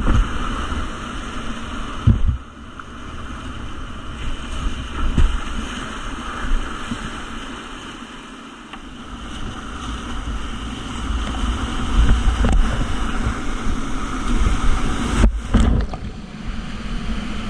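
Whitewater rapids rushing and churning around a kayak, picked up by a GoPro action camera, with water and wind buffeting the microphone in low rumbling thumps. The sound cuts out briefly near the end.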